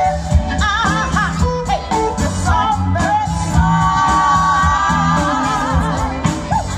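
Live band playing a soulful blues song, with bass and drums under a singer's line sung with vibrato; the singer holds one long note about halfway through.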